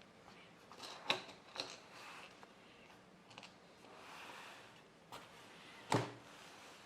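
A few short clicks and knocks of small plastic case parts being handled and set in place: two close together about a second in, then a single louder knock near the end.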